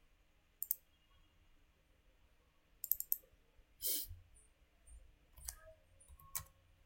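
Computer mouse button clicks: a single click, a quick run of three clicks about three seconds in, then two more single clicks near the end. A brief soft burst of noise comes just after the run of clicks.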